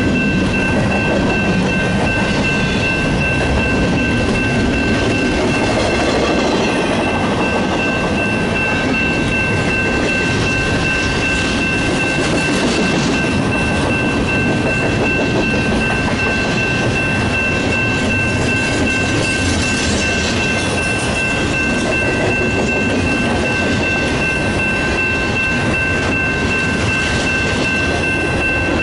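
Union Pacific double-stack intermodal train's well cars rolling steadily past, with two steady high-pitched tones over the rumble.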